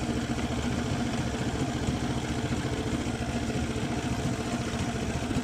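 A fishing boat's engine running steadily at low speed, with an even, fast low throb.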